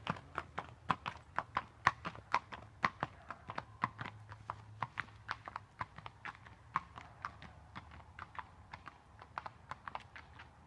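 Hoofbeats of a Tennessee Walking Horse moving along a dirt lane: a steady, even clip-clop of about three to four strikes a second, growing fainter as the horse moves away.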